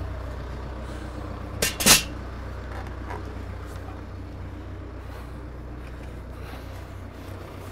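Tractor engine idling steadily, with two sharp knocks a quarter second apart just under two seconds in, the second the louder.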